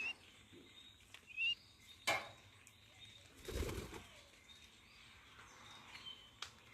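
Birds' wings flapping in a short flurry about three and a half seconds in, with a sharp click shortly before and a few faint chirps.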